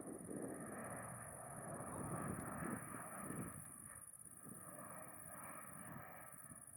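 Distant Airbus A400M Atlas four-engine turboprop rumble, fading away over the second half.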